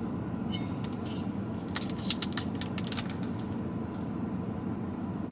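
Scattered light clicks and taps of small takeout containers being handled and set down, most of them a couple of seconds in, over a low steady background hum.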